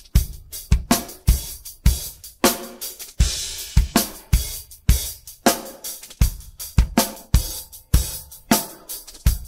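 Isolated studio drum-kit track playing a steady groove: kick drum and snare hits, just under two heavy hits a second, with hi-hat strokes between them. A cymbal rings out a little after three seconds in.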